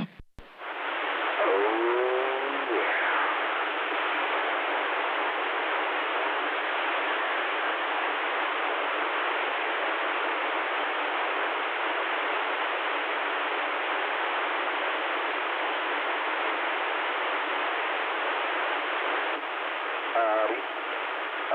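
CB radio receiver hissing with steady band-limited static between transmissions. Faint, warbling fragments of distant voices come through about two seconds in and again near the end.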